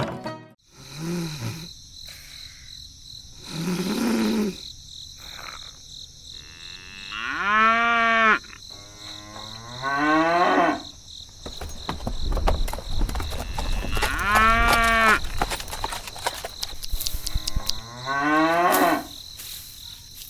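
Several long, drawn-out animal calls, each rising and falling in pitch, with the two loudest about a third and three quarters of the way through. A steady high thin tone runs underneath.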